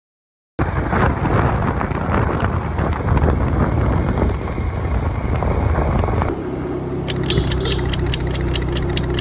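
Motorbike ride: engine noise with wind rushing over the microphone. About six seconds in it cuts to a steadier low engine hum with fast, regular ticking.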